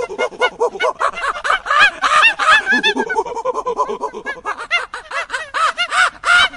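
A flock of domestic fowl calling together: a dense, continuous chatter of many short rising-and-falling calls, several a second, overlapping one another.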